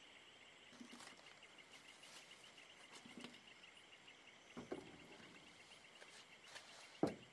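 Insects chirring steadily at dusk, a fast pulsing trill, with a few soft knocks and handling sounds close by; the loudest knock comes about seven seconds in.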